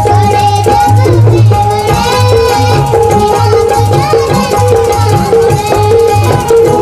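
A young girl singing a Marathi devotional song into a microphone, with harmonium and a steady hand-drum rhythm behind her.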